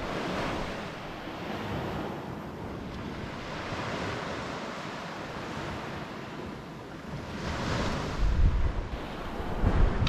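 Ocean surf washing onto a beach, the rush of the waves swelling and easing several times, with wind gusting against the microphone near the end.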